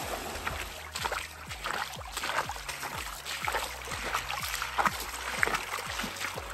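Footsteps wading through a shallow, stony stream: a quick, uneven run of splashes and sloshes over the steady rush of the running water.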